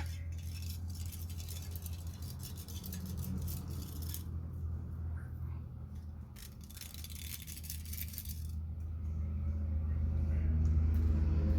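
Scratching and rattling of small hand tools stripping the old leather grip and metal winding from a cello bow, in two spells, over a steady low hum that swells toward the end.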